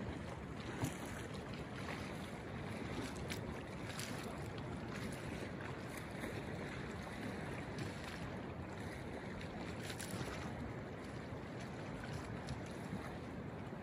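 Kolyma River flowing fast and rippling along its banks, a steady, even rush of water.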